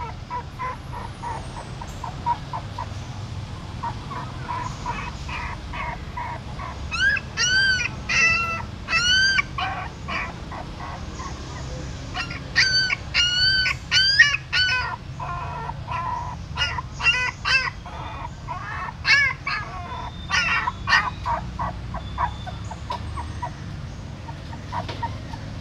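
Newborn puppies crying: short, high whimpers repeated throughout, with bouts of louder, rising-and-falling squeals in the middle and near the end.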